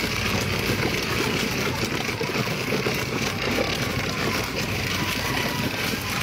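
Orange ride-on toy tractor rolling over gravel, a steady noise from its wheels on the loose stones.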